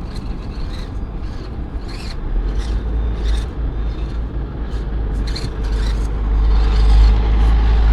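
Micro RC crawler (Axial SCX24) working over rough ground: a string of short scrapes and clicks from its tires and chassis on the terrain. Under it runs a heavy low rumble that swells about two seconds in and again near the end.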